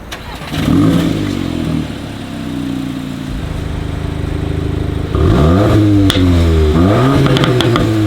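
2022 VW Golf R Mk8's turbocharged 2.0-litre four-cylinder starting up about half a second in, flaring briefly and settling to a steady idle. From about five seconds in it is blipped in a series of quick revs that rise and fall, with crackles from the exhaust.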